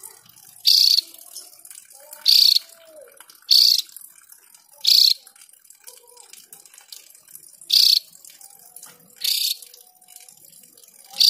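Caged opior jawa (Javan grey-throated white-eye) giving a series of about seven short, harsh calls, one every one to three seconds. Faint chirping sits between the calls.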